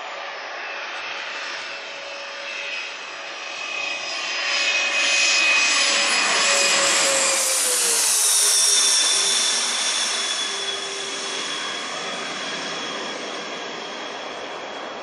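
Jet airliner passing low overhead: its engine whine and rushing noise build, peak about halfway through, and drop in pitch as it goes by.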